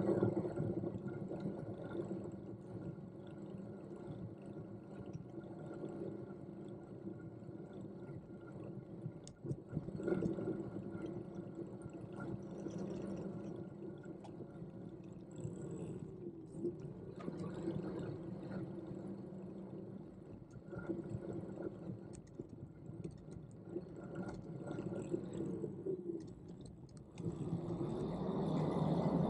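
Electric bike's hub motor whining with a steady tone of several pitches, dipping and recovering in pitch a couple of times. A louder rush of noise comes in near the end.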